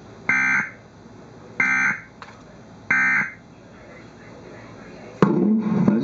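Three short electronic data bursts about a second and a quarter apart: the Emergency Alert System's end-of-message (SAME 'NNNN') tones that close a severe thunderstorm warning relayed over television. About five seconds in, the regular TV programme sound cuts back in.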